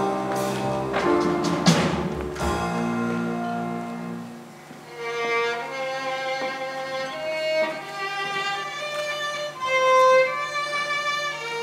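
Stage-show music with a bass line and a few sharp accents ends about four seconds in. A solo violin then plays a slow, unaccompanied melody of long held notes.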